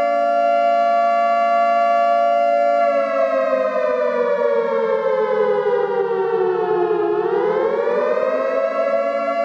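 A loud, siren-like chord of held tones that slowly slides down in pitch for about four seconds, then swings quickly back up and holds steady again.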